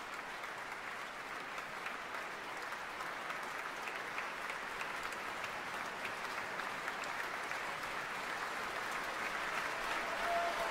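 Concert-hall audience applauding steadily, a dense crackle of many hands clapping that grows a little louder toward the end.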